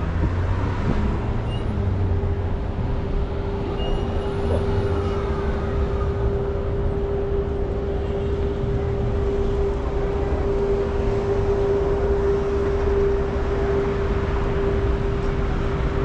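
Steady city street traffic rumble, with a constant hum held unchanged through it.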